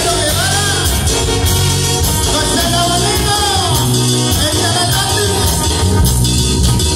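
A live band playing Latin dance music loudly for a dancing crowd: a singing voice over a heavy, repeating bass line and drums.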